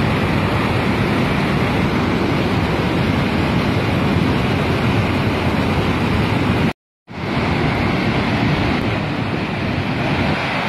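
Glacial lake outburst flood: a torrent of muddy floodwater rushing past as a loud, steady noise, cut off for a split second about two-thirds of the way through.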